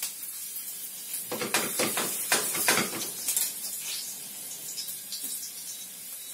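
Chopped garlic frying in oil in a frying pan, a steady sizzle, with a cluster of clatters and knocks from kitchen utensils about one and a half to three and a half seconds in.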